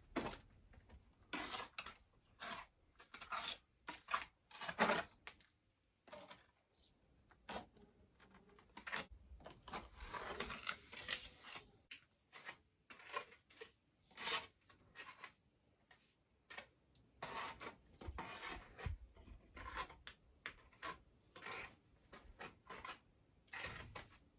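A steel trowel scraping and spreading render over a brick arch, in short, irregular strokes with pauses between them.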